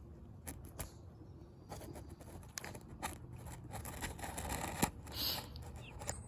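Irregular rustling and scraping with scattered sharp clicks, as a hen is held and handled and chickens shuffle about in the run.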